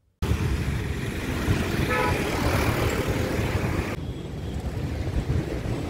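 Wind buffeting a phone microphone outdoors: a dense low rumble with hiss, starting abruptly, with a brief faint tone about two seconds in.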